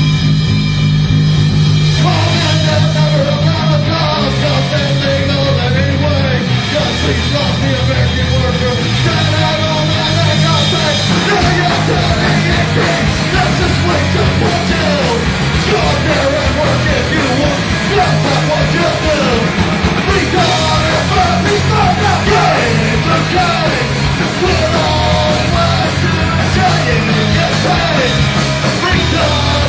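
Live rock band playing loud: electric guitars, drums and a shouted vocal. A low chord rings for the first couple of seconds, the yelled vocal comes in about two seconds in, and the full band with cymbals fills out about eleven seconds in.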